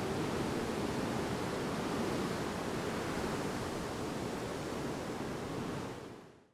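Steady rushing noise of Hurricane Irma's storm winds, with no distinct events, fading out near the end.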